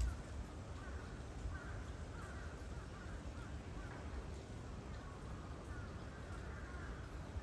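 Spotted hyena calling: a long run of short, wavering high-pitched calls.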